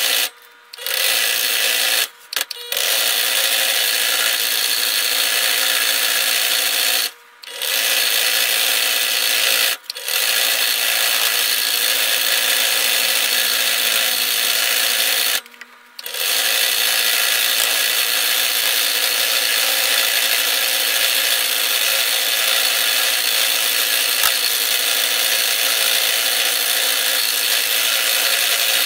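Scroll saw running and cutting through wood, a steady buzzing drone. It drops out briefly about five times, in the first sixteen seconds.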